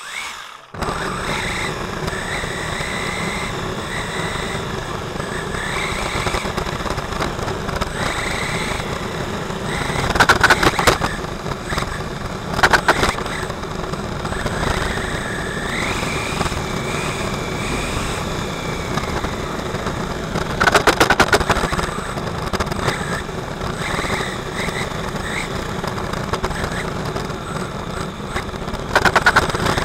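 Onboard audio from a 1/8-scale HobbyKing HKM-390 RC motorbike racing round a track: a steady running noise with the drive motor's whine rising and falling as the throttle changes. Four times there is a short, loud rattling burst.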